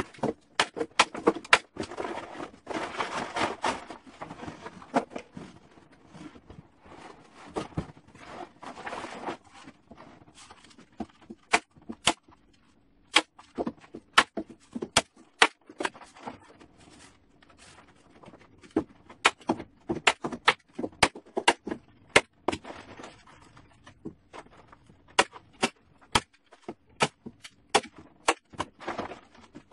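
Manual staple gun snapping staples through a plastic tarp into wood, repeated sharp clicks at an irregular pace of one or two a second. The tarp rustles as it is pulled and folded in the first few seconds and again about eight seconds in.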